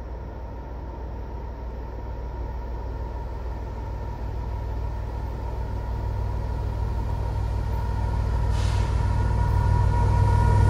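Diesel locomotives of an approaching freight train: a low rumble that grows steadily louder as the train nears, with a steady whine above it.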